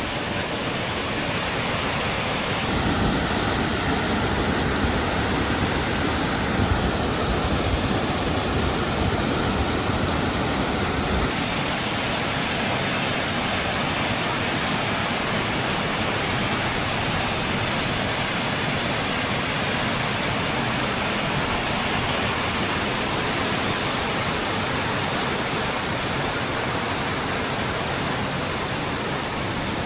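Steady rushing of a waterfall, with no pitched sound in it; it turns louder and deeper abruptly about three seconds in and drops back abruptly about eleven seconds in, then holds steady.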